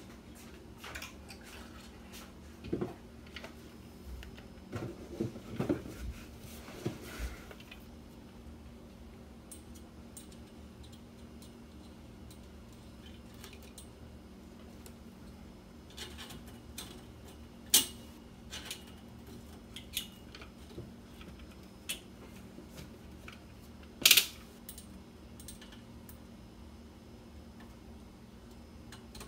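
Scattered light metallic clicks, taps and scrapes of a bent wire hook fishing for a fish tape inside a steel roll-cage tube, with two sharper clicks in the second half, over a steady low hum.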